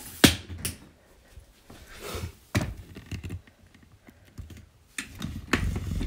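Handling noise from a phone camera being moved and set down on a counter: scattered sharp clicks and knocks with rustling, and a low rumble near the end.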